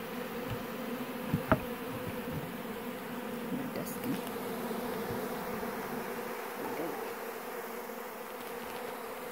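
Many honeybees buzzing, a steady hum throughout, with one short sharp tap about a second and a half in.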